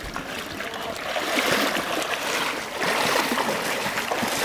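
Shallow river water running and splashing as someone wades through it in waders, with a few louder surges of splashing.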